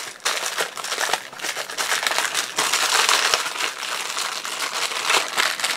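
Clear plastic packaging crinkling as gloved hands unwrap a new oil seal, a dense crackle throughout.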